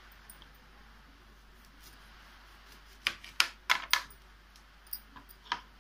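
Kitchen knife clicking against a plastic cutting board as a lemon is cut: a cluster of sharp clicks about three seconds in and one more click near the end.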